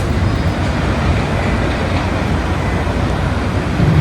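Steady low rumble and rush of outdoor port noise, with vehicles and machinery working on the quay below a docked cruise ship.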